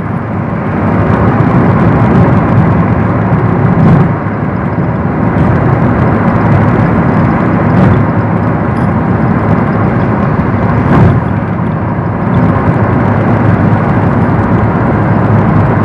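Steady road and wind noise of a car moving at speed, heard from inside the cabin, briefly louder about eleven seconds in.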